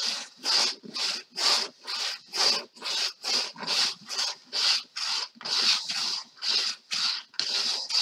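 Paintbrush scrubbing back and forth across a canvas, a rhythmic scratchy rub of about two to three strokes a second, blending the paint together.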